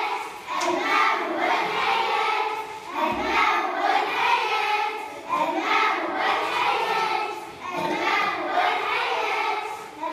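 Several children's voices singing together, continuing without a pause.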